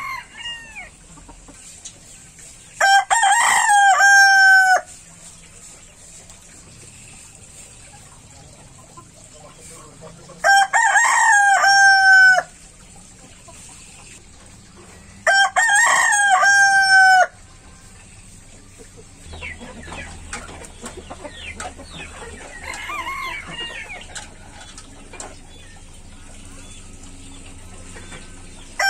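Rooster crowing: three loud crows of about two seconds each, a few seconds apart, each dropping in pitch at the end. Quieter, broken bird calls follow in the last third.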